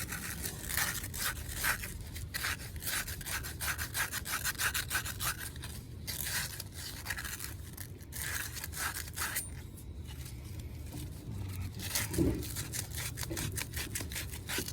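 Quick back-and-forth rubbing strokes of a part being cleaned by hand, in several runs with short pauses between.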